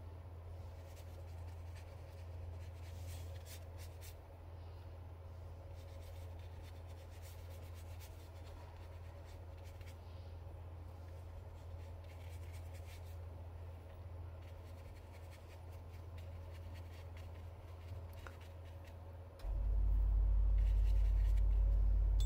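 A paintbrush and hand brushing and rubbing faintly over watercolour paper, with soft scratchy strokes, over a steady low hum. About 19 seconds in, the hum gets suddenly louder and stays that way.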